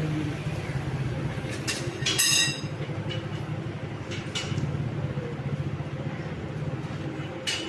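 Metal fabrication shop sounds: a steady low machine hum with a few sharp knocks of metal on metal. The loudest, about two seconds in, rings briefly like struck steel.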